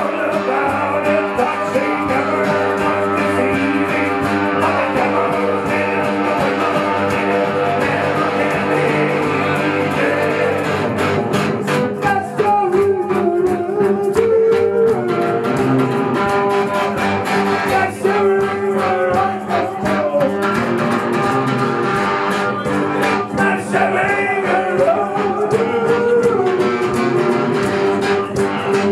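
Live band music played on an acoustic guitar and an electric guitar together, a steady strummed bed with melodic lines that bend in pitch around the middle and again near the end.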